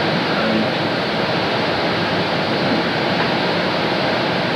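Steady, loud hiss with no words: the background noise of an early-1980s home video camera recording.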